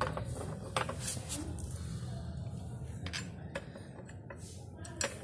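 Metal chair fittings clinking and clicking as a gaming chair's steel seat brackets and mechanism are handled during assembly: about half a dozen sharp clicks spread through, over a steady low hum.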